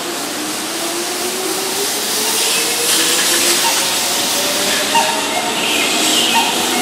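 Keihan 2600-series electric train pulling away from a platform: its motor whine climbs steadily in pitch as it gathers speed, over the hiss and rolling noise of the cars passing by.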